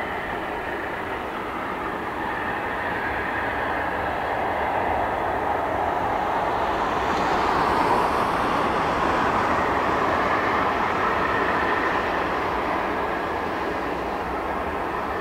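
Boeing 737-800's CFM56-7B jet engines running at taxi power as the airliner turns onto the runway and lines up: a steady rushing whine that grows to its loudest about halfway through, then eases a little.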